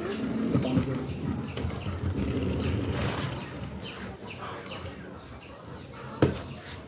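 Birds chirping again and again in short falling chirps. A battery toy train's motor hums steadily at first and fades out within the first second, and a single sharp knock comes about six seconds in.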